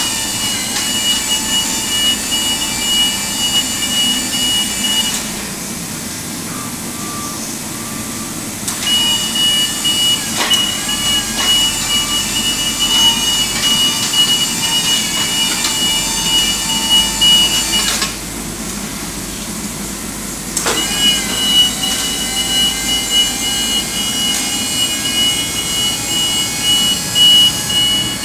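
JLG 1932E2 electric scissor lift's motion alarm beeping rapidly and steadily as the machine drives and then raises its platform. It sounds in three stretches of several seconds each, falling quiet twice for a few seconds between moves.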